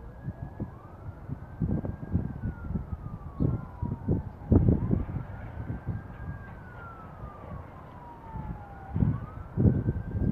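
Distant emergency vehicle siren wailing, its pitch climbing quickly then sliding slowly down, over and over. Gusts of wind buffet the microphone with loud low rumbles, heaviest about four seconds in and near the end.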